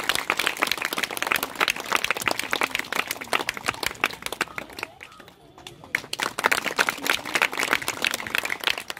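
Crowd applauding with many hands clapping fast. The clapping dies down about four and a half seconds in and picks up again about a second later.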